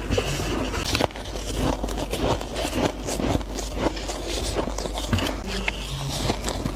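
Close-miked crunching and chewing of soft ice and freezer frost: a dense run of small crackling crunches, with a sharper bite about a second in.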